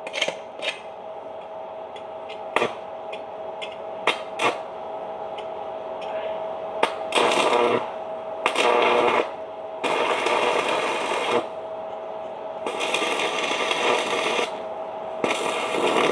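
Electric arc welding: a few sharp taps and scratches of the electrode, then five crackling, sizzling bursts of the arc, each lasting one to two seconds.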